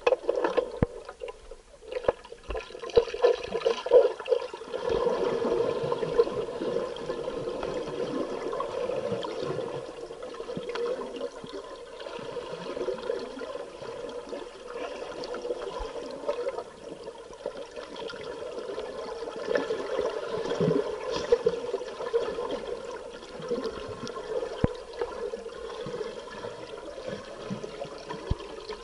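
Underwater bubbling and gurgling of a scuba diver's exhaled air. It starts abruptly, comes in uneven surges for the first few seconds, then carries on steadily.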